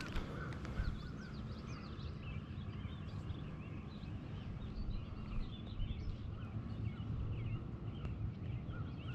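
Several birds singing and chirping, many short notes sliding up and down, over a steady low rumble.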